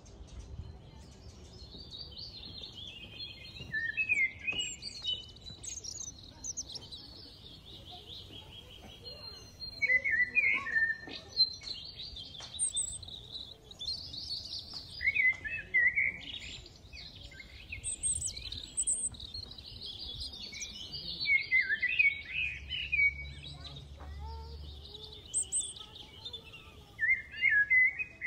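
Several small birds chirping and twittering, their calls overlapping almost without pause, with louder bursts of calls every few seconds.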